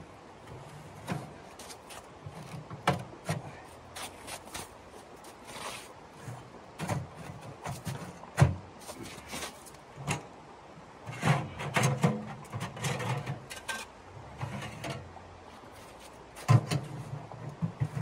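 Portable sheet-metal camp wood stove being set up by hand: irregular metal knocks, clanks and rattles as its legs, door and stovepipe are handled, with the loudest clatters about eight seconds in, around eleven to twelve seconds, and near the end.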